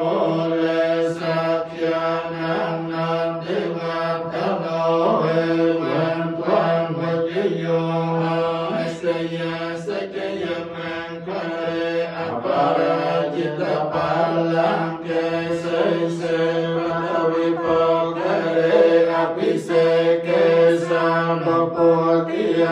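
Group of Buddhist monks chanting together in unison, male voices holding a steady reciting pitch without pause.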